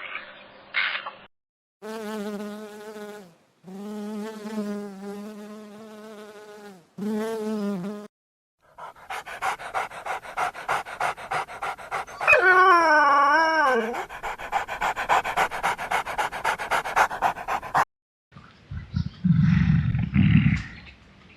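A series of different animal calls. First come three long, steady whining calls with a slight waver. Then a fast, even rattling buzz runs for about nine seconds, with a wavering call over it in the middle. A low rumbling growl follows near the end.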